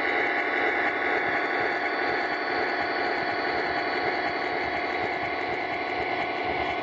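O-gauge model train's passenger cars rolling past on Lionel FasTrack, a steady running noise of wheels on the track, with the electric model locomotive close by.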